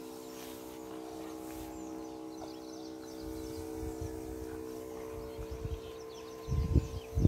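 A steady mechanical hum made of several held tones, with faint bird chirps over it. Near the end, loud low rumbles of wind or handling hit the microphone.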